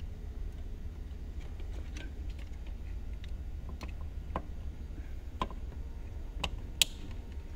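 Small scattered plastic clicks and taps from hands fitting hose and wire connectors onto the SL 500's soft-top vacuum pump assembly, with one sharper click near the end. A steady low hum runs underneath.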